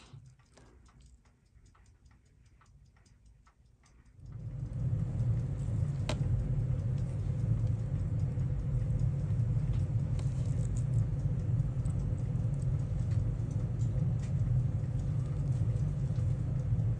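Faint rapid ticking. About four seconds in, a steady low mechanical rumble comes on and holds, with one sharp click soon after.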